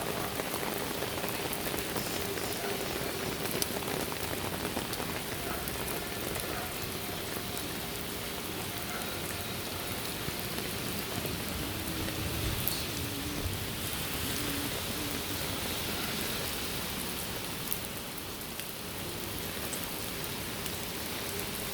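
Steady rain falling, with a few louder single drops now and then.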